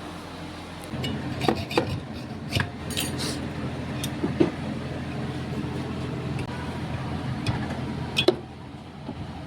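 A steady electrical hum, like a running motor or compressor, with scattered metallic clinks and taps on top. The hum comes in about a second in and drops away near the end.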